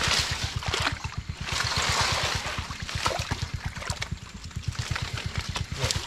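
Water splashing and trickling as a bubu fish trap is handled and lifted in floodwater, with louder splashes at the start and again about two seconds in. A steady low throb runs underneath.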